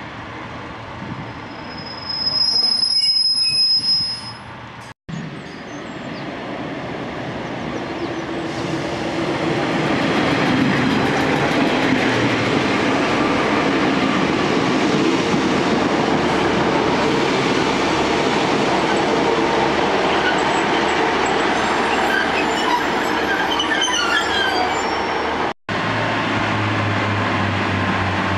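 Class 142 Pacer diesel railbus at a platform: a loud, high-pitched wheel squeal for about two seconds a few seconds in, then the running noise of the train moving alongside the platform, building up and staying loud. After a cut near the end comes a steady low diesel engine hum.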